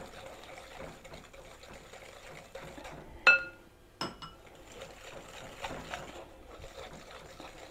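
Wire whisk beating batter by hand in a glass mixing bowl, a soft uneven swishing. Near the middle, two sharp clinks of the whisk against the glass, under a second apart, each ringing briefly.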